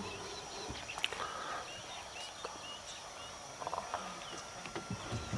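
Short, high, bird-like chirps repeating every half second or so, with a few sharp clicks among them.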